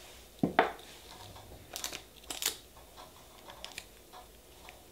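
Light clicks and taps of nail-stamping tools (scraper and stamper) against a metal stamping plate. A handful of short knocks is spread over a few seconds, the loudest about half a second in.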